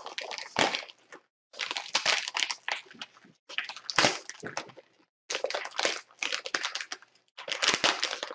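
Clear plastic bag around a spool of TPU 3D printer filament crinkling and crackling as it is cut open with a razor blade and pulled apart, in about five bursts with short pauses between them.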